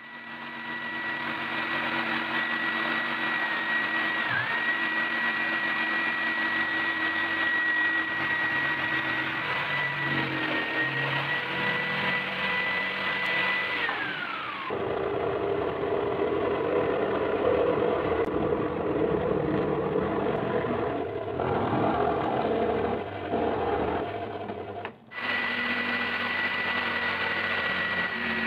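Electric jigsaw sawing through plywood: a steady high motor whine over the blade's rapid chatter. About halfway the whine falls in pitch and gives way to a lower, rougher running sound, then after a brief break near the end the high whine returns.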